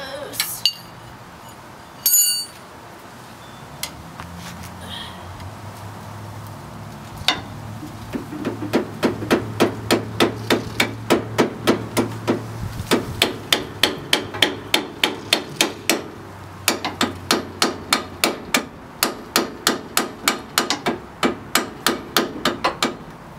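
Socket ratchet clicking in quick, even strokes, about four a second, as a shock absorber's mounting bolt is worked, with a couple of short pauses. A few loose metal clinks come before the ratcheting starts.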